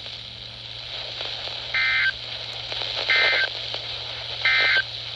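NOAA Weather Radio EAS end-of-message code: three short, identical bursts of buzzy SAME data tones, evenly spaced a little over a second apart, over steady radio receiver hiss. They mark the end of the warning broadcast.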